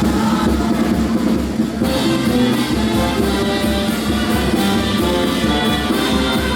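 Marinera norteña music played by a brass band with trumpets over a steady drum beat.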